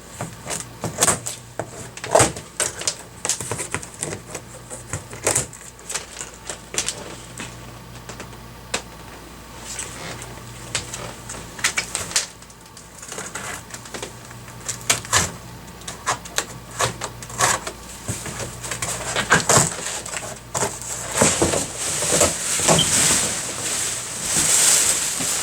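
Large cardboard shipping box of a mini split outdoor condenser being opened by hand: an irregular run of clicks, knocks and scrapes, with a rustling noise building up near the end.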